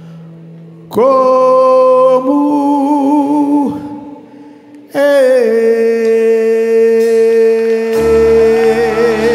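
Live worship music: a singer holds two long, loud notes with vibrato over a soft sustained chord. The first begins about a second in and fades, the second begins about five seconds in, and a low bass comes in near the end.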